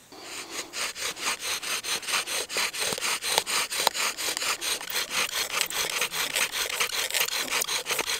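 Bow drill worked fast: a grass-tree (Xanthorrhoea) flower-spike spindle grinds in its hearth-board socket, driven by a shoelace bow in quick, even back-and-forth strokes, about four a second. This is the burning-in of the socket, done before the notch is cut.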